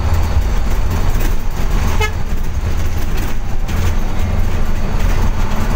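Mitsubishi BM 117 bus running at speed, a steady low engine rumble with road noise heard inside the cabin. A short horn toot sounds about two seconds in.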